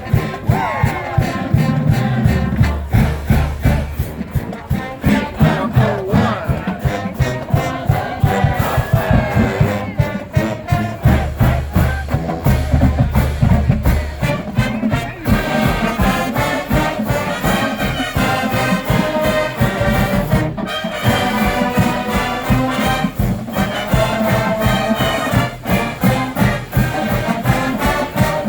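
College marching band playing: brass horns over a steady drum beat, with a crowd around it.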